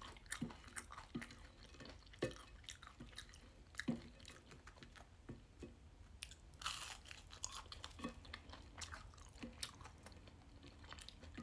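Close-up chewing and crunching of crispy oven-baked food, with many short sharp crunches, a few louder bites, and a louder, longer crunch about seven seconds in.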